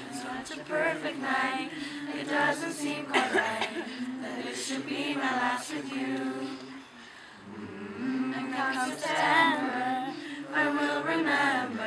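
Voices singing a cappella, several together like a small choir, with no instruments; they drop away briefly about seven seconds in, then come back.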